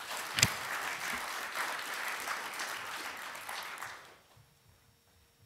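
Audience applause that dies away about four seconds in, with one sharp knock about half a second in.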